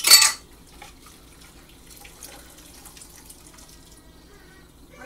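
A brief loud rush of noise at the very start, then faint clicks and rustles of bread and meat being handled on a cutting board.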